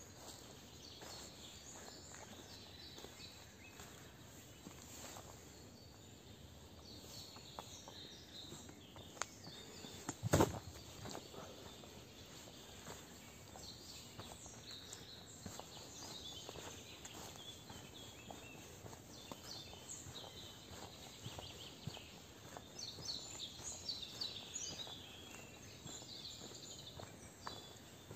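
Songbirds singing and chirping, busier in the second half, over soft footsteps on a path. A single sharp knock about ten seconds in is the loudest sound.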